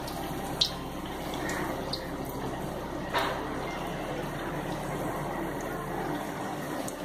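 Pastry parcels deep-frying in hot oil, a steady sizzling and bubbling. Two short taps of the slotted spoon against the pan come about half a second in and about three seconds in.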